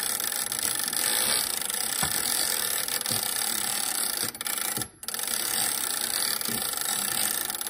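Gear train of a Standard Electric Time master clock's day-of-week drum being turned by hand with the minute advance lever held down: a steady rapid mechanical clicking, broken off briefly about five seconds in.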